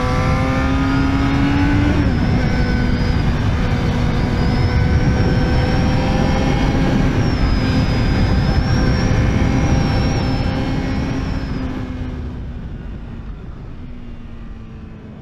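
Yamaha YZF-R6 inline-four engine revving up, shifting up about two seconds in, then running at a fairly steady speed under heavy wind rush. The sound fades away over the last few seconds.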